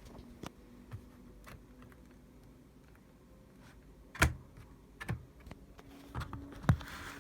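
Laptop lid hinge clicking and creaking as the lid is moved: a few faint clicks, then two sharp clicks about four and six and a half seconds in. This is the fault the owner is asking about, clicks and creaks even though the lid opens smoothly and firmly.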